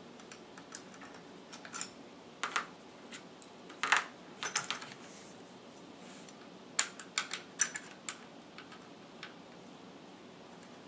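Sharp metallic clicks and clinks of an Allen wrench turning the trigger-housing bolts of a Daisy 1903 Springfield replica drill rifle, coming irregularly in three short clusters.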